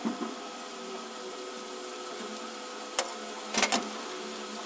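Metal saw parts knocking against a steel basin of cleaning oil: one sharp click about three seconds in, then a short clatter just after, over a steady hum.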